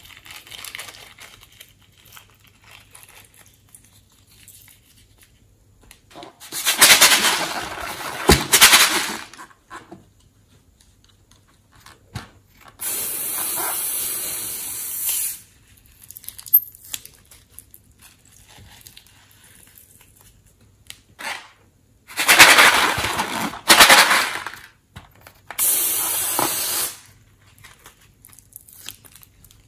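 Slime-filled balloons being handled and cut open. Twice there is a loud bout of crackling, crinkling noise, each followed by a steady hiss that lasts about two seconds.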